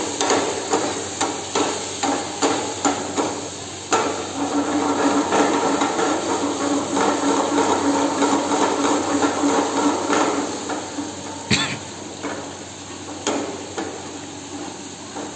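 Steel ladle stirring and knocking against a nonstick frying pan of sizzling prawn masala gravy: quick regular taps for the first few seconds, then busier scraping and clatter, easing off later with one sharp knock.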